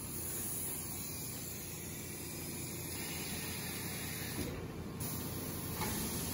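Steady hissing machinery noise from a rotary-table concrete press that moulds sidewalk blocks.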